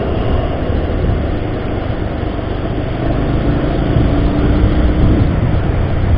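Bajaj Pulsar 150 motorcycle cruising at low city speed: its single-cylinder engine running steadily under a dense rumble of wind and road noise.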